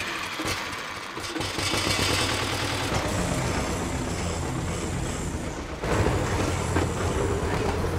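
Farm tractor engine running steadily. It comes in about a second in and gets louder near six seconds as the tractor drives off.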